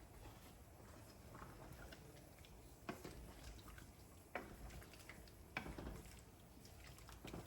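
Flour spinner dumplings dropped one at a time into a pot of simmering soup, each landing with a soft wet plop: four of them, about every second and a half, starting about three seconds in.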